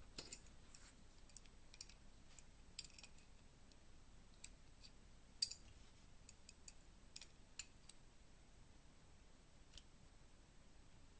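Faint, scattered light clicks of small metal parts as a Diana T06 air rifle trigger unit is handled and worked apart, with near silence between them.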